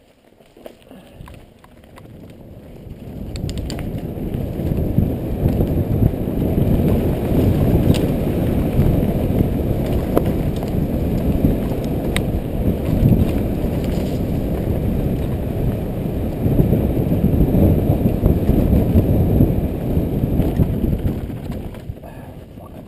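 Specialized Demo 8.1 downhill mountain bike riding fast down a dirt forest trail: a loud low rumble of wind on the helmet camera's microphone and tyres on dirt, with a few sharp clicks and rattles from the bike over bumps. It builds over the first few seconds as speed picks up and drops away near the end.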